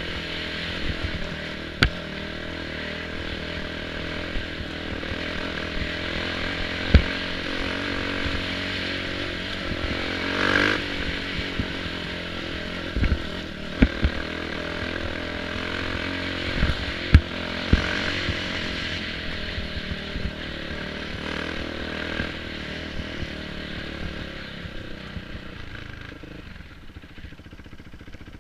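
Kawasaki KX450F motocross bike's single-cylinder four-stroke engine running as it is ridden over rough ground, its pitch rising and falling with the throttle. Several sharp knocks and some clatter come from the bike striking stones. Near the end the engine drops to a lower, quieter run.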